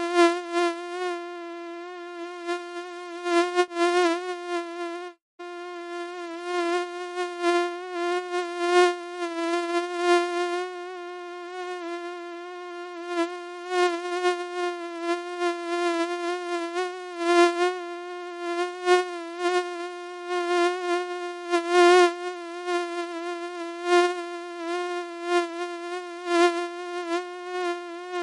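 Mosquito buzzing sound effect: a steady, slightly wavering high whine from the wingbeat, swelling and fading in loudness, with a brief cut about five seconds in.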